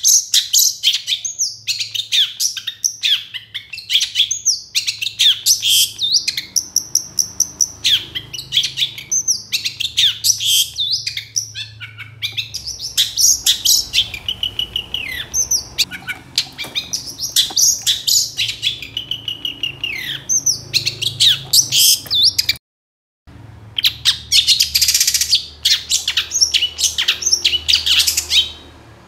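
Caged long-tailed shrike (cendet) singing vigorously: a fast, unbroken run of short, sharp, varied chattering and squeaky notes. The song drops out for a moment about three-quarters of the way through, then carries on.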